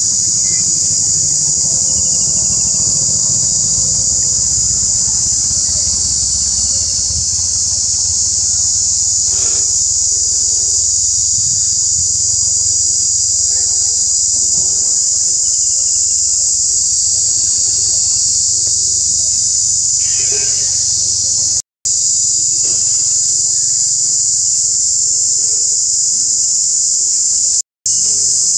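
Loud, steady, high-pitched insect chorus buzzing continuously, with a low rumble underneath. The sound cuts out for an instant twice near the end.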